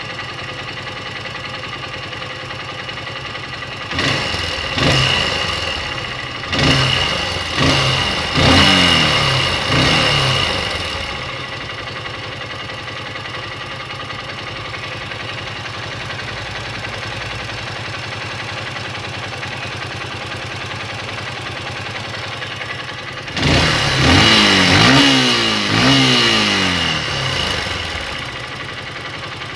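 Honda XR150L's single-cylinder four-stroke engine idling. About four seconds in, the throttle is blipped over and over for several seconds, each rev rising and dropping back, and there is another run of revs near the end. The engine is run to show a noise that the owner hears in it.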